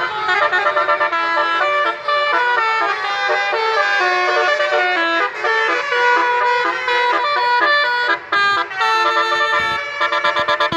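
Basuri musical horn on a tow truck playing a melody in quick stepped notes, several tones sounding together, with short breaks and a fast choppy run near the end.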